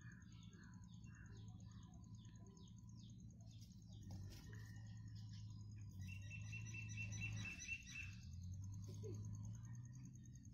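Small birds chirping faintly: a quick run of short chirps in the first few seconds, then a longer series of high pitched notes around the middle, over a low steady hum.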